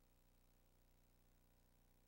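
Near silence: a soundless track carrying only a faint steady hum.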